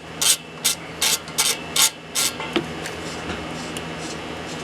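Hand ratchet wrench working a bolt loose, about six quick ratcheting strokes at an even pace that stop a little over two seconds in, followed by a single click. The bolts being loosened hold the exhaust header to the engine.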